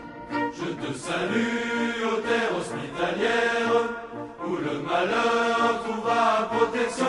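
A choir singing slow, held notes that step from one pitch to the next.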